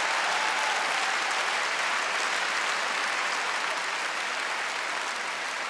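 Live comedy audience applauding after a punchline, the clapping slowly dying down.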